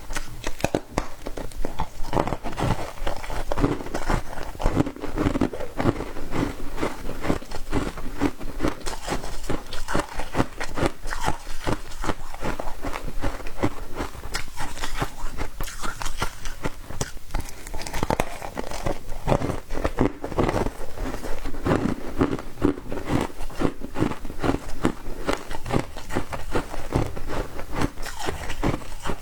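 Foam ice being bitten and chewed: continuous, rapid crunching.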